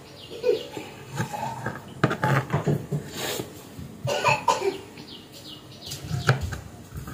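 Kitchen knife cutting strawberries on a plastic cutting board: irregular knocks and taps as the blade goes through the fruit and hits the board.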